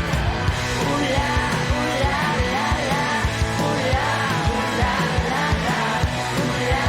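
Rock song playing, with a vocal sung over guitars and a steady drum beat.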